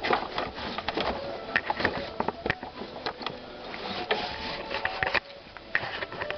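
Irregular clicks, ticks and light rattles of hands handling the new throttle cable and its plastic and metal fittings under the hood.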